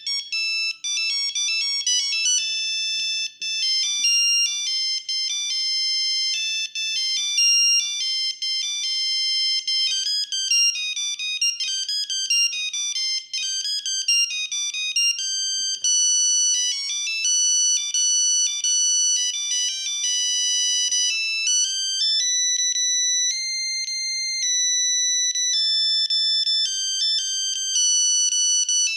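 Siemens S35 mobile phone playing a monophonic ringtone: a fast tune of bright electronic beeps, one note at a time, with some longer held notes about two-thirds of the way through.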